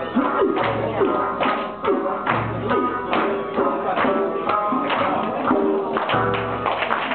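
Live Okinawan folk music: two sanshin playing a plucked melody with sliding notes, with a few deep beats from a large barrel drum.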